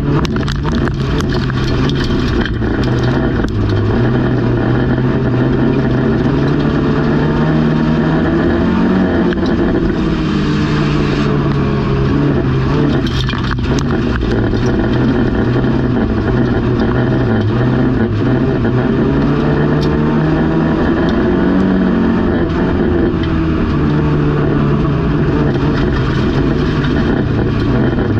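Banger race car's engine heard from inside the stripped cabin, running hard with its pitch rising and falling again and again as it accelerates and backs off. There are occasional knocks along the way.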